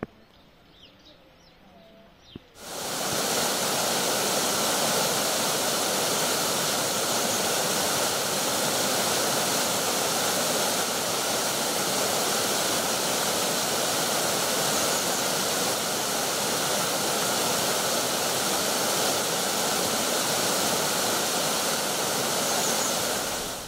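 Mountain stream rushing over rocks: a steady, even sound of running water that starts suddenly about two and a half seconds in.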